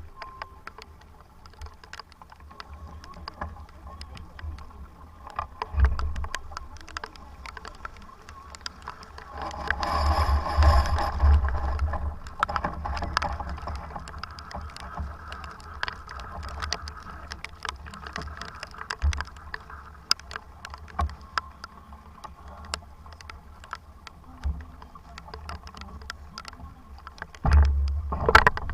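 Wind buffeting the microphone aboard a sailboat in about 25 knots of wind, with water rushing past and scattered sharp ticks. A louder rush of water noise swells about ten seconds in and lasts a couple of seconds, and another short loud burst comes near the end.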